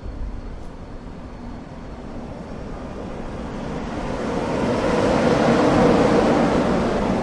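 A train approaching, its rumble and wheel noise swelling steadily from about halfway in and loudest near the end, with faint steady tones showing through as it nears.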